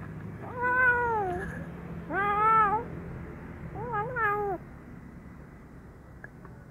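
Kitten meowing three times, each meow under a second long; the third wavers up and down in pitch.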